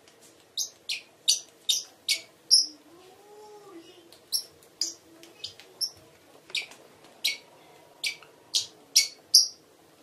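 A parrot giving a string of short, sharp, high-pitched chirps, about seventeen in all, in three quick runs separated by brief pauses.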